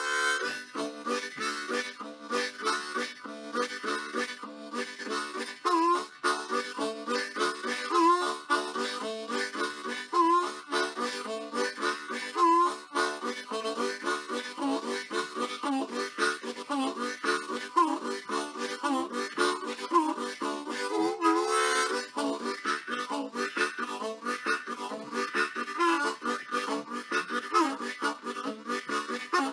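Background music led by a harmonica, playing a steady tune.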